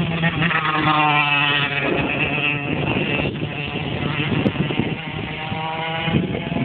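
125 cc motocross bike engine running, its pitch holding fairly steady with small rises and falls.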